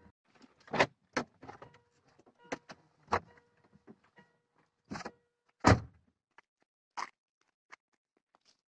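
Doors of a Tata car opening and shutting as people get out, heard as a string of sharp clicks, latch knocks and thuds. The loudest, deepest thud, a door slamming shut, comes about two-thirds of the way in.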